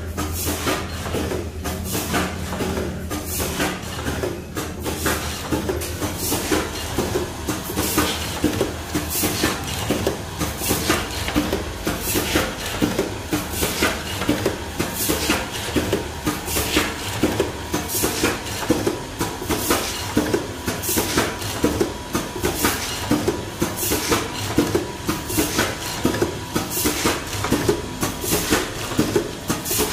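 Automatic vertical packing machine with a two-hopper weigher running continuously, clacking in an even rhythm as its sealing jaws close on the film and cut off sachets.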